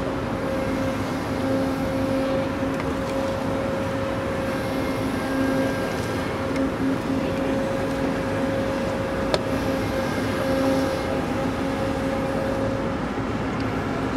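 Steady drone of the cargo ship's heavy machinery, a low rumble with a humming tone and its octave above it, while the deck cranes hold a railcar in slings. A single sharp click about nine seconds in.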